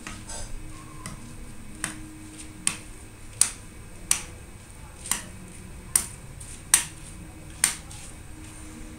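A series of about eight sharp single clicks, under a second apart, from a computer mouse button being pressed.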